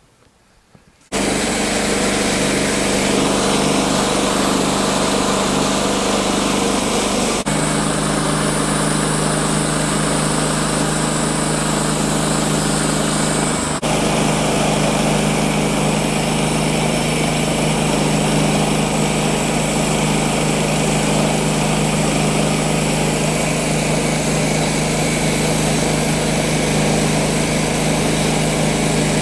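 Portable band sawmill (Woodland Mills HM-126) with its small gas engine running steadily while making a cut along a log. The engine comes in suddenly about a second in and holds an even pitch.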